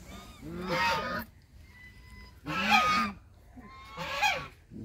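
Large white domestic waterfowl in a pen calling: three separate calls, each under a second long, the middle one the loudest.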